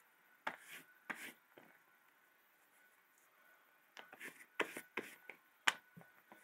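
Hands handling a leather knife sheath and a cloth rubbing over it as excess leather conditioner is wiped off: scattered short rubs and taps, a cluster about four seconds in, and one sharp click near the end.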